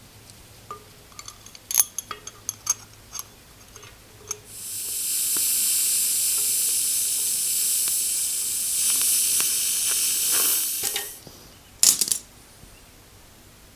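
Small metal parts clinking and clicking, then a steady high hiss of a pressurized spray lasting about six seconds that stops abruptly, followed by a couple of sharp clicks.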